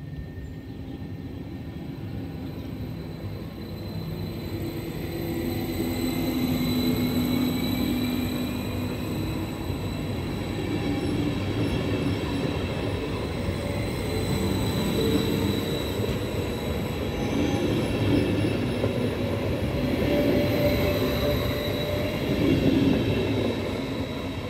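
Stadler KISS double-deck electric multiple unit running through the station without stopping: wheels rumbling on the rails, with a steady high whine above. It grows louder over the first few seconds as the train arrives, holds while the cars pass, and eases a little near the end as it draws away.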